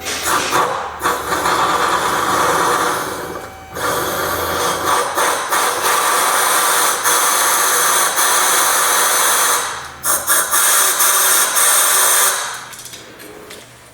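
A power tool running in long bursts, breaking off briefly about four seconds in and stopping and restarting a few times around ten seconds, then running down near the end.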